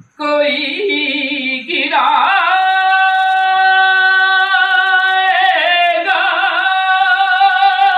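A man's voice singing a naat unaccompanied, in a fairly high register, with long held notes that waver slightly.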